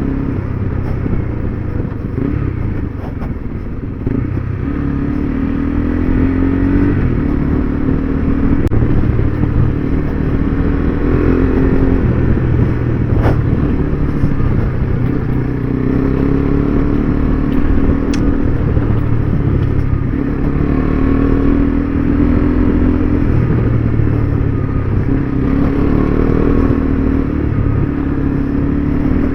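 KTM 390 Adventure's single-cylinder engine running under way off road, its pitch rising and falling in steps as the throttle opens and closes and the gears change. Two short sharp ticks come through in the middle.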